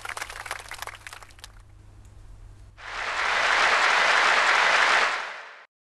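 Applause sound effect: dense clapping that thins out and stops about a second and a half in, then from about three seconds in a louder, even rush of crowd applause that fades away and cuts off just before the end.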